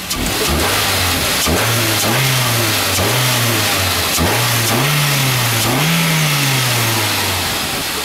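Truck engine revved by hand at the throttle about four times, each rev rising and falling back, then settling toward idle near the end. It runs smoothly, without the clanking and ticking that the intake manifold runner flaps caused before they were removed.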